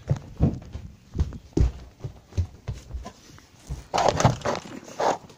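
Irregular low thumps and rubbing as a phone is moved and handled against its microphone, with two louder rustling bursts about four and five seconds in.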